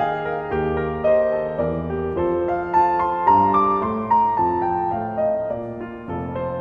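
Gentle background piano music, a melody of single notes over sustained lower notes.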